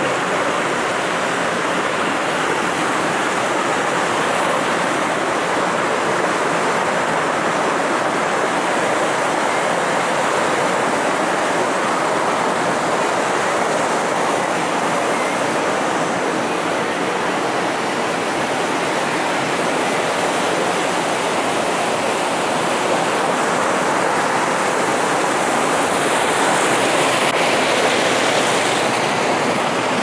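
Steady rushing of a small waterfall spilling into a stream pool.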